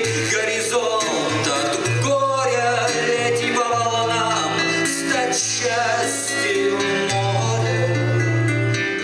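A man singing a slow song to his own classical guitar accompaniment, low guitar bass notes under the voice.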